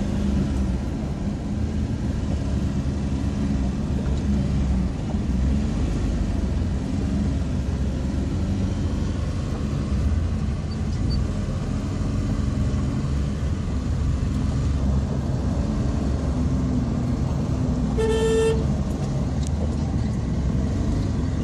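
Slow road traffic: a steady low rumble of car and bus engines crawling through a waterlogged road, with one short car horn toot about three seconds before the end.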